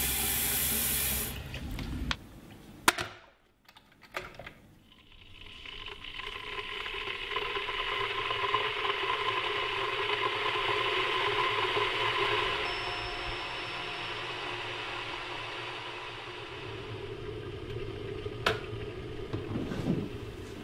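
Tap water running into a stainless-steel kettle for about a second, then a few knocks. A kettle heating follows: a rushing hiss that swells over several seconds and slowly eases off, with a sharp click near the end.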